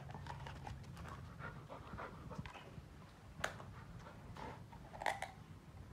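Golden retriever sniffing and breathing in short puffs with its nose down at a live crab. Two sharp clicks stand out, about three and a half and five seconds in.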